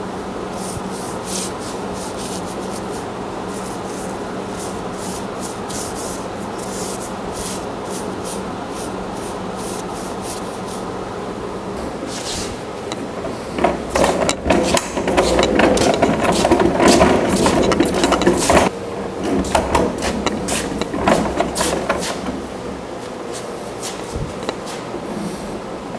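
A cloth rag rubbing stain into a wooden cabinet top in quick scratchy strokes. Past the middle, a cabinet's caster wheels roll across a concrete floor with a loud rumble for about five seconds, then more softly before stopping.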